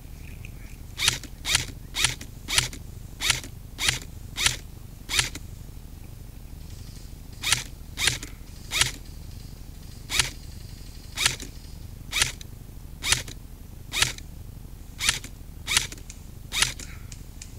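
M4-style airsoft rifle fired semi-automatic: about nineteen sharp single shots, roughly one to two a second, in two strings with a pause of about two seconds between them.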